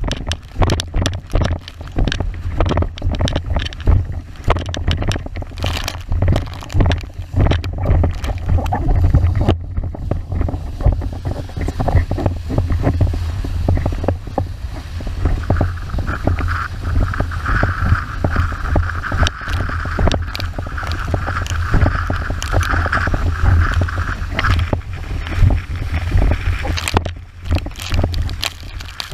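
Windsurf board planing fast over chop: water rushing and spraying along the hull with constant irregular slaps, under heavy wind buffeting on the board-mounted camera's microphone. A steadier, higher hiss joins in for several seconds in the middle.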